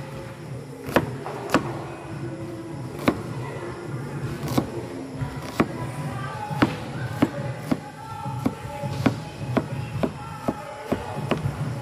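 Steel cleaver chopping red onion and garlic on a plastic cutting board: sharp knocks, roughly one to two a second, with background music playing underneath.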